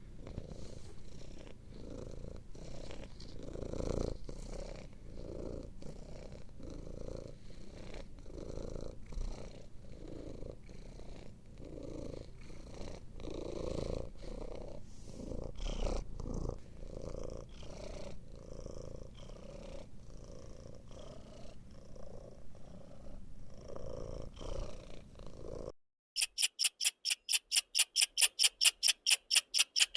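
Cat purring steadily, pulsing in and out with its breaths. About 26 seconds in it cuts off abruptly, and a fast, high-pitched chirping begins, repeating several times a second.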